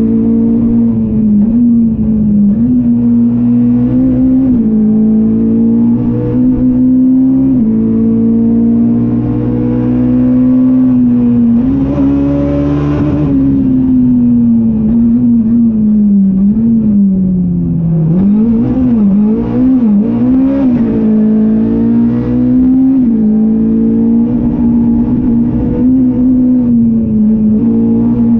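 Ford Fiesta R200 rally car's engine heard from inside the cockpit, pulling hard and climbing in pitch through each gear with quick drops at the upshifts. Past the middle it winds down as the car slows, with several quick revs up and down through the downshifts, then pulls hard again. A brief rushing noise joins it a little before the middle.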